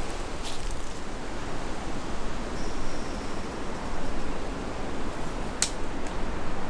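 Steady rushing wind noise, with a short click about half a second in and a sharper one about five and a half seconds in.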